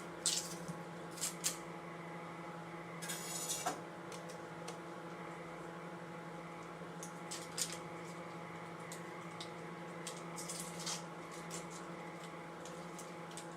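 Light clicks and taps of butter and utensils being handled at a pot of peas, with a short rustle about three seconds in, over a steady low hum from a running kitchen appliance.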